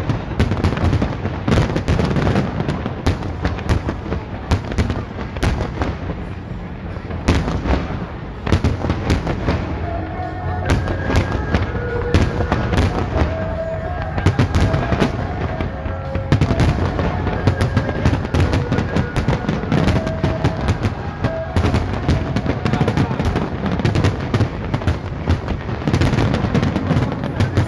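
Large aerial fireworks display: a dense, continuous barrage of shell bursts and crackling, many bangs a second, with no let-up.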